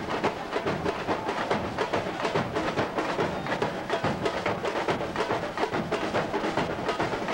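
Carnival samba percussion: a drum section playing a fast, steady beat.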